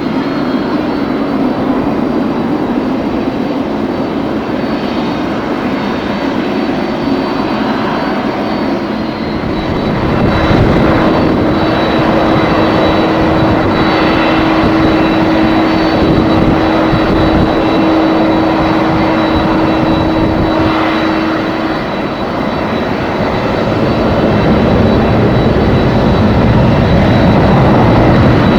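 Jet airliner engines heard as a loud, continuous rushing noise with a thin high whine. It grows louder about ten seconds in and again near the end.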